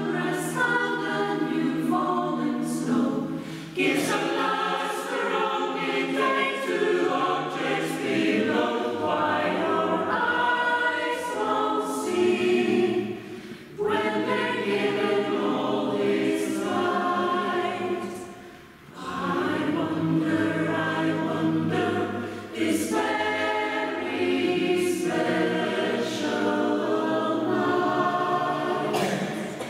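Mixed choir of men and women singing a cappella, in phrases broken by a few short pauses.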